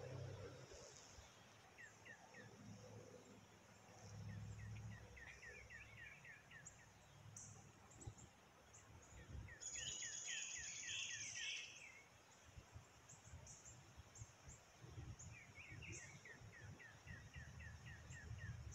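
Faint outdoor ambience with birds singing: series of quick down-slurred chirps repeated several times, scattered higher chirps and a short buzzy high trill near the middle. A faint low rumble swells underneath at times.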